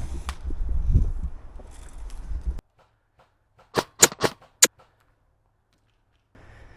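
Low rustle and rumble of an airsoft player moving with his gear. About two and a half seconds in, the sound cuts to dead silence, broken by four sharp clicks in quick succession.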